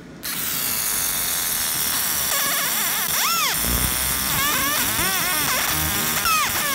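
Galvo laser marking machine engraving a hatch fill into a metal plate: the scanner mirrors buzz and chirp in quick tones that sweep up and down as the beam traces the pattern, starting abruptly just after the start.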